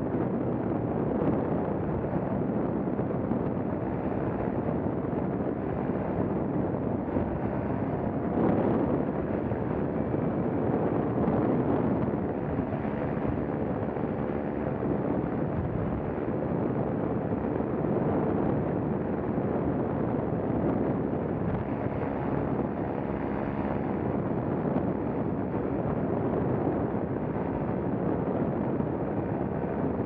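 Paramotor engine running steadily in flight, with wind noise on the microphone.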